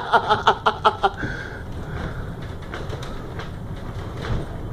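Pittsburgh incline (funicular) car running along its rails: a low steady rumble, with a brief high squeal about a second in. A person's voice in short pulses during the first second.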